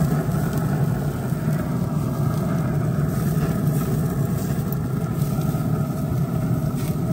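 Pit Boss pellet grill running with its lid open: a steady low rumble from its fan and burning pellet fire.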